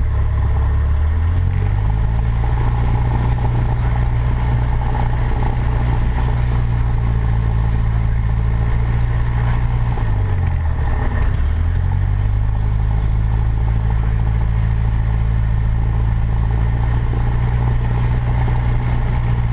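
Cessna 152's four-cylinder Lycoming O-235 engine running steadily. Its pitch rises about a second in, then dips briefly and comes back up around the middle.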